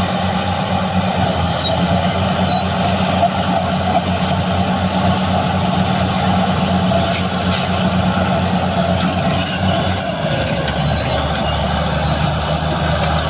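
BEML BD355 bulldozer's diesel engine running hard with a steady note and a faint high whine. About ten seconds in, the engine note drops and the whine falls away.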